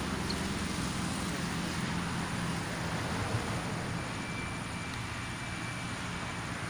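Steady low engine hum over a constant background rush, like nearby motor traffic, easing slightly after about three seconds.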